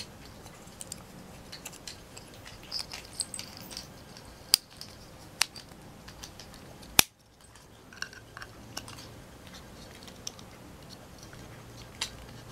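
Small plastic Playmobil pieces clicking and tapping in the fingers as a doll's dress is worked onto a clothes hanger. The clicks come at uneven intervals, with a few sharper ones in the middle and one near the end.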